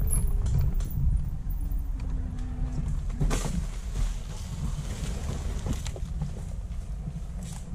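Gogoro electric scooter ridden over a bumpy dirt trail: a low rumble from the ride shaking the camera, with the motor's thin whine falling in pitch as it slows over the first couple of seconds. Sharp knocks and rattles come twice, as the wheels go over sticks and branches.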